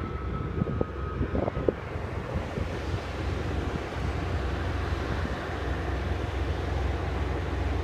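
Wind buffeting the microphone: a steady low rumble with a few thumps in the first two seconds.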